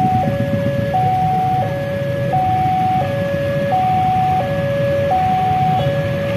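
Electronic railway warning alarm sounding two tones in turn, high then low, each held about two-thirds of a second. It warns of an approaching train. A diesel locomotive's low engine rumble runs steadily underneath.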